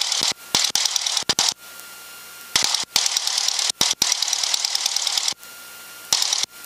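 Cessna's piston engine and propeller running at idle, heard as a hissy, fast-pulsing drone through the cockpit headset intercom. The sound cuts out abruptly several times, once for about a second, leaving only a faint steady tone, as the intercom squelch closes and reopens.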